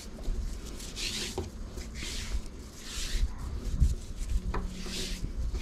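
Jute rope being handled and oiled by hand: a series of soft hissing strokes, about one a second, with a couple of light clicks.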